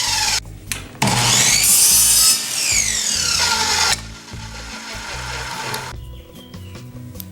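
Miter saw spinning up and cutting through a piece of scrap wood at 45 degrees, then its whine falling as the blade winds down. The end of an earlier spin-down is heard at the very start, and quieter handling sounds and a few clicks follow near the end.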